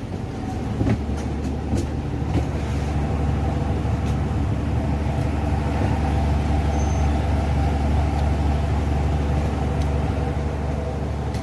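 Steady low engine drone with a constant hum, a few light knocks in the first couple of seconds.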